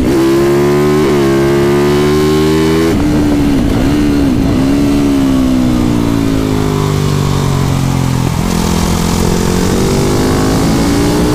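TM Racing 450 supermoto's single-cylinder four-stroke engine, heard onboard while lapping a track. It pulls steadily for about three seconds, drops in pitch with a few quick dips, slides lower as the bike slows, then climbs again near the end as it accelerates. Wind rushes over the microphone throughout.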